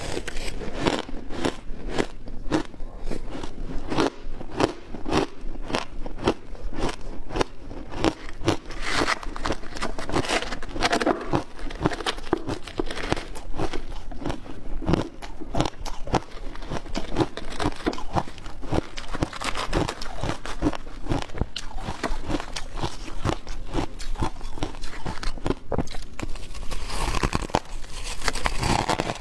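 Close-miked biting and chewing of shaved ice: a continuous run of sharp, crisp crunches, several a second.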